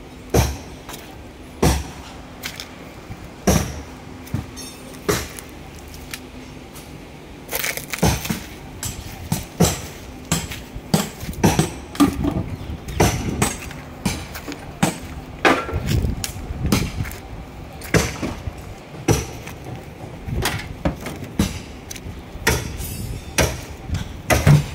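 Footsteps crunching over dirt and scattered scrap debris, irregular knocks and crunches that come well apart at first and faster from about eight seconds in.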